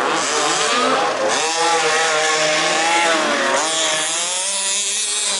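Several 1/5-scale RC off-road cars' small two-stroke petrol engines racing together. Their buzzing pitches overlap and rise and fall as the cars throttle up and back off around the track.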